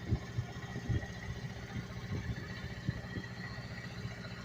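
The engine of construction machinery at a water main replacement running steadily, with a low hum and irregular dull knocks.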